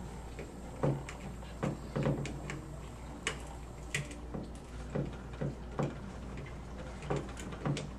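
Scattered small clicks and taps of hands handling a plastic plug-in power transformer, fastening the low-voltage wire ends onto its terminals, at irregular intervals about a second apart.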